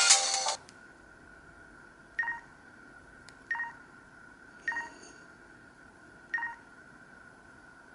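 Electronic tones from an LG KP500 mobile phone's speaker: a loud burst of sound cuts off about half a second in, then four short beeps follow at uneven spacing over a faint steady whine.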